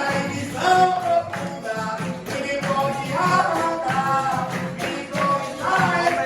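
Capoeira roda music: berimbaus playing a steady rhythm under group singing.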